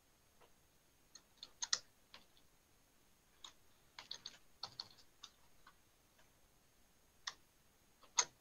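Computer keyboard typing: faint, irregular keystrokes in small clusters.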